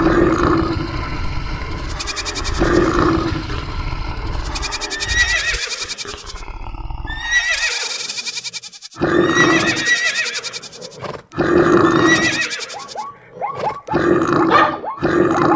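A medley of animal sound effects: a series of separate calls and roars a second or two apart, with two high horse whinnies between about five and eight seconds in.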